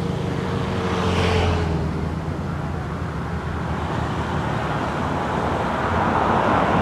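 Steady road-traffic noise with a low engine hum; a louder swell about a second in and another near the end, like vehicles passing.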